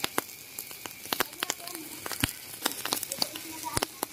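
Charcoal grill fire crackling, with skewered meat sizzling over the flames: irregular sharp pops and crackles, several a second.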